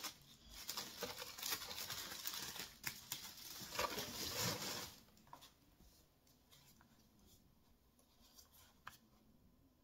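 Rustling and handling of product packaging as a boxed item is pulled out and turned in the hands. After about five seconds it drops to near quiet with a few faint clicks.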